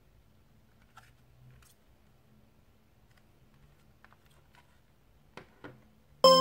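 Faint clicks and taps of a plastic CD jewel case being turned over in the hands, with two sharper knocks as it is laid on a table. Near the end, electronic keyboard music cuts in suddenly and loudly.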